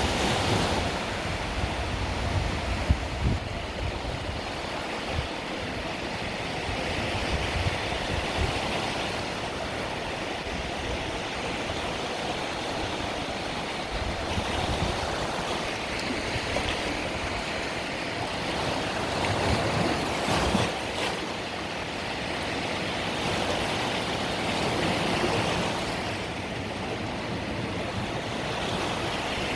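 Small Mediterranean waves washing onto the shore, the surf swelling and easing every few seconds, with low rumbles underneath.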